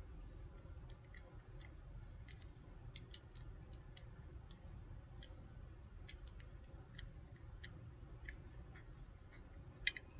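Faint, irregular plastic clicks and taps from a Kamen Rider Ex-Aid toy game cartridge and belt being handled and their button pressed, with a sharper click near the end. The toy plays none of its electronic sound effects, which the owner hopes is just flat batteries.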